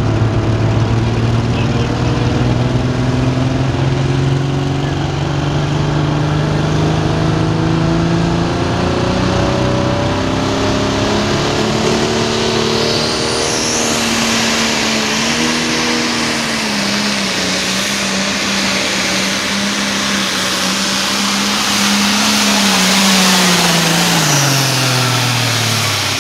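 Pro stock pulling tractor's turbocharged diesel engine working at full load during a pull. Its pitch climbs slowly over the first dozen seconds, holds, then drops over the last couple of seconds as the throttle comes off.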